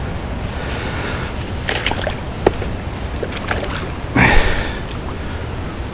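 Water splashing and sloshing in the muddy shallows at the river's edge, with a few small splashes and one big splash about four seconds in, over a steady low rumble of wind on the microphone.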